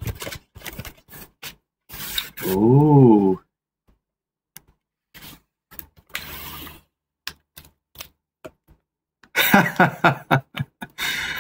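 A taped cardboard box wrapped in plastic being pulled open by hand: scattered clicks and taps of cardboard and tape, then a dense burst of crinkling and tearing near the end as the packing is torn back. A drawn-out "Ooh" about three seconds in.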